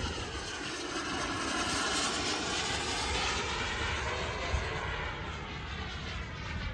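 Radio-controlled model jet fighter flying past, its engine whine growing louder toward the middle and then fading, the pitch bending as it goes by.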